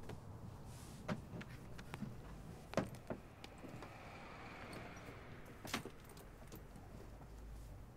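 Light handling noises: a few sharp clicks and knocks, with a soft rustle in the second half, as a handbag is taken off and set down.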